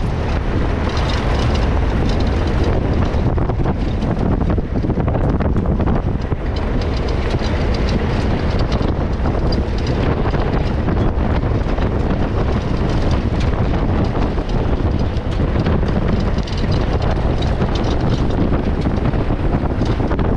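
Safari vehicle driving, with a steady rumble and the body rattling and clattering over a rough track. Wind buffets the microphone.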